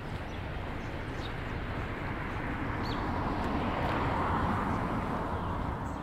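A car passing on a residential street: its tyre noise swells to a peak about four seconds in and then eases, over a steady low rumble. A few faint, short high chirps.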